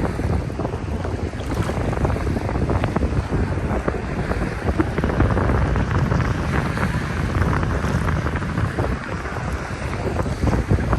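Wind buffeting the microphone over the sea, a loud steady rumbling noise with crackling, mixed with the wash of water.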